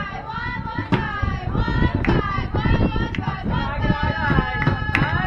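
Young female voices chanting a sing-song softball cheer together, with sharp claps mixed in.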